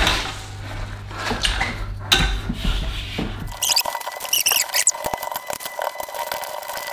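Squeaking and rubbing from a wall-mounted hose reel being turned as the flexible pressure-washer hose is pulled off it. The squeaks come in a short cluster of wavering chirps about four seconds in.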